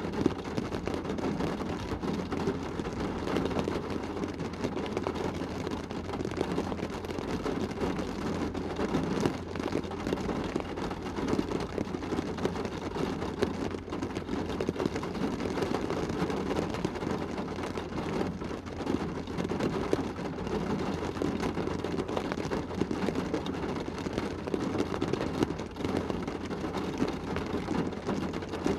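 Rain shower falling on a car's roof and glass, heard from inside the cabin: a dense, steady patter of drops.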